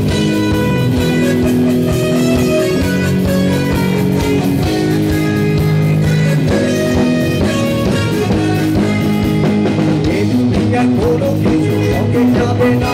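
Live rock band playing loudly through amplifiers, led by guitar, with no singing in this passage.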